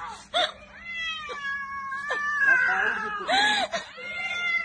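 Cat yowling in drawn-out wails, one long cry followed by several shorter rising-and-falling ones, while it is held and pulled with its head stuck between the bars of a metal railing: the cries of a trapped, distressed cat.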